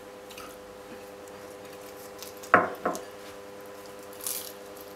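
Flaky baked pastry crunching as a bite is taken, a short crisp burst near the end. About halfway there are two quick sharp sounds, falling in pitch, over a steady background hum.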